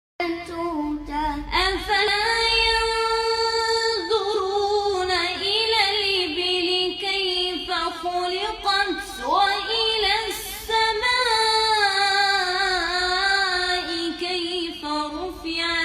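A child's high voice chanting Quranic verses melodically and unaccompanied, with long held notes and ornamented glides between them.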